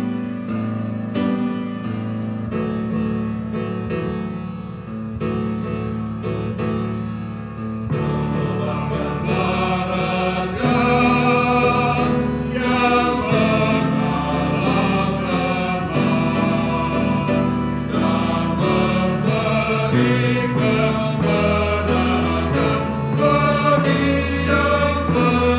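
Mixed church choir singing a hymn in harmony with keyboard accompaniment. The music is softer, with held chords, for the first several seconds, then the choir sings out louder from about eight seconds in.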